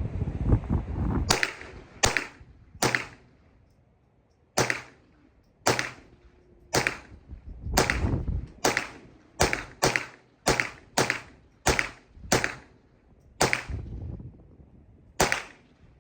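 An MP5-style .22 rifle firing about seventeen single shots at an uneven pace, with a quick string of rapid shots in the middle. The reports are sharp and fairly light, which the shooter calls quiet. Wind noise rumbles on the microphone before the first shot.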